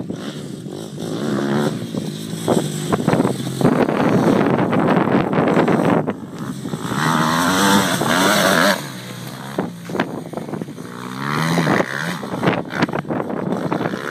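Motocross dirt bike engine revving up and down as the bike rides the track, its pitch rising and falling. It is loudest as the bike passes close by, about seven to nine seconds in.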